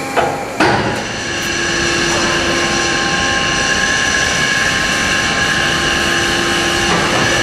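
CNC beam-processing machinery in a steel fabrication hall running with a steady mechanical drone carrying several high whining tones. Two sharp knocks come within the first second.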